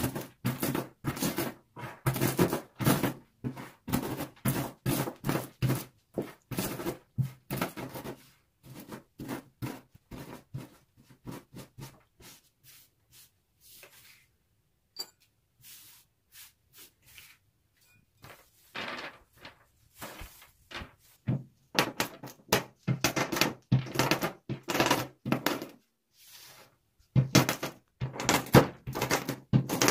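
Wooden rolling pin rolled and pressed over walnut kernels on a wooden tabletop, crushing them, in a rapid run of knocks and crunches about two to three a second. It thins to a few faint taps in the middle while the crumbs are gathered, then picks up again.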